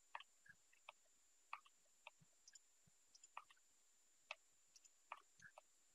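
Near silence with faint, irregularly spaced clicks of a computer mouse, about a dozen short clicks.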